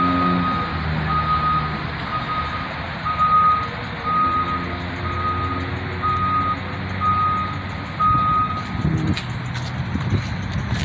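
Backup alarm of a construction vehicle, a single steady tone beeping about once a second, nine beeps, then stopping near the end. A low engine rumble runs underneath.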